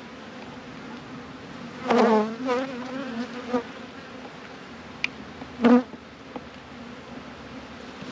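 Honey bees humming steadily over an open hive whose frames are out, with two louder, wavering buzzes: one about two seconds in and a shorter one just before six seconds.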